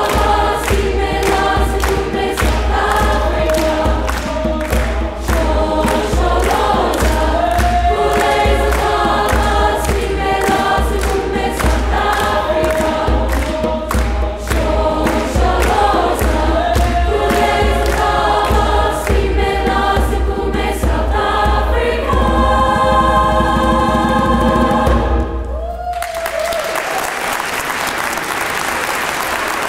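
Choir singing, ending on a long held chord that cuts off sharply about 26 seconds in, followed by an audience applauding.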